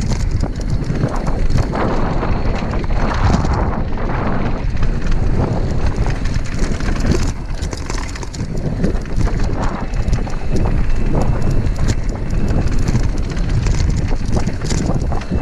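Mountain bike riding over a rough dirt trail: a steady low rumble of tyres and wind on the microphone, with a rapid, irregular clatter of knocks and rattles from the bike jolting over bumps.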